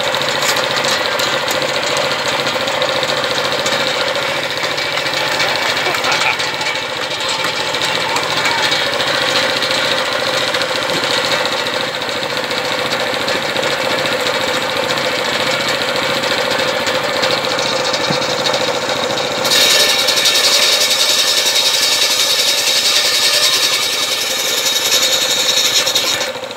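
Belt-driven circular saw bench running steadily with its blade spinning. About twenty seconds in the blade starts ripping a wooden plank lengthwise, and the sound turns louder and brighter with a steady high tone, falling back just at the end as the cut finishes.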